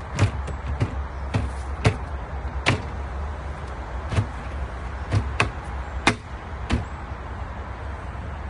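Hard PVC compost-bin parts knocking and clacking together as they are handled and fitted: about a dozen sharp knocks at uneven intervals, then none for the last second or so. A steady low rumble runs underneath.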